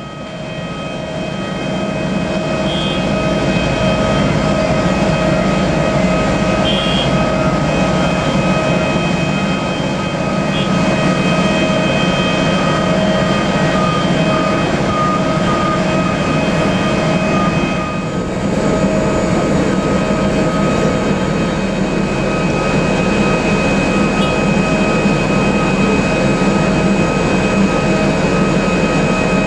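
Jet engines of a Boeing 767 running steadily: a high whine of several steady tones over a deep rumbling roar. The sound swells over the first few seconds, then holds.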